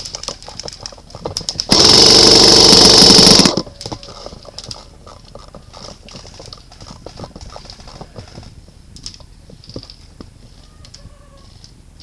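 KWA SR10 airsoft electric rifle firing one full-auto burst of just under two seconds, very loud from the camera mounted on the rifle. Scattered short clicks and knocks come before and after the burst.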